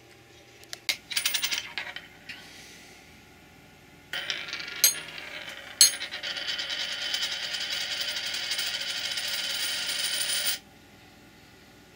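A quarter spinning on a tabletop, rattling steadily for several seconds and then cutting off suddenly as it settles flat. Earlier there is a quick run of small metallic clicks.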